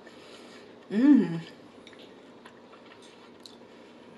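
A woman's single closed-mouth "mmm" of enjoyment about a second in, its pitch rising then falling, while she chews a mouthful of food. Soft mouth clicks from the chewing come before and after it.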